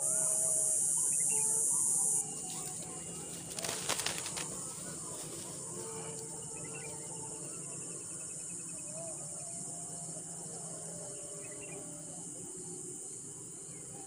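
A black-winged kite leaving its nest: a short flurry of wingbeats and twig rustle about four seconds in. Behind it a steady high insect buzz, loud for the first two seconds and then cutting off abruptly, with scattered calls of other birds.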